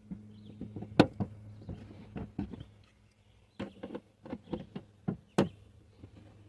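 Plastic trunk-trim grommets being worked loose and pried out: a string of sharp clicks and knocks, with the loudest snaps about a second in and again near the end.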